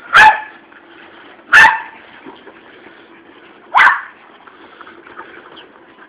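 Boston terrier barking three times, short sharp barks about a second and a half to two seconds apart.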